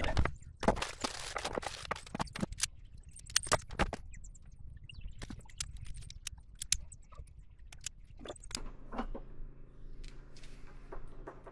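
Clicks, knocks and light metallic clinks of hand tools and cable parts being handled, frequent in the first half and sparser later. About eight seconds in, a low steady hum starts and carries on.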